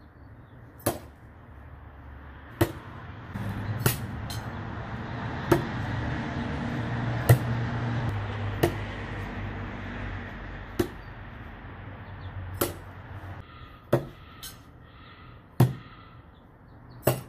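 Throwing knives sticking into a wooden plank target one after another: about a dozen sharp thuds a second or two apart. A low rumbling noise swells and fades in the middle.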